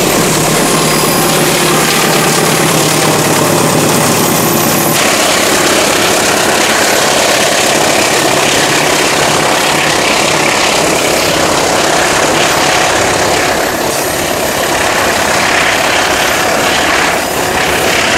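CC 204 diesel locomotive passing with its engine running, its low hum and a high whine dropping away about five seconds in. After that, the steady noise of a long string of covered pulp wagons rolling by on the rails.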